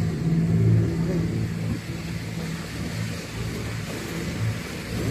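Motorboat engine running steadily under way: a low hum that swells and fades slowly, over a hiss of water and wind.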